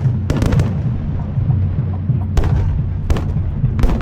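Aerial fireworks bursting: a quick cluster of sharp bangs just after the start, then single bangs about two and a half, three and four seconds in, over a steady low rumble.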